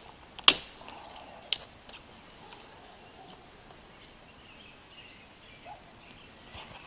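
Two sharp snaps of dry wood about a second apart, then faint rustling as dry, hollow dead sticks are laid by hand onto a small kindling fire that has just started to smoke.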